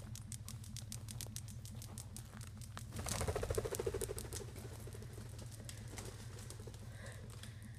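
Footsteps crunching and crackling through dry grass and twigs in a rapid run of small clicks, then a louder brief fluttering rush about three seconds in.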